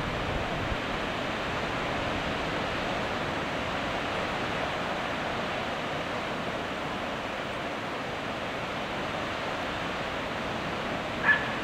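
Sea surf breaking on a sandy beach, a steady, even rushing wash with no pause between waves. A single short, sharp sound cuts in near the end.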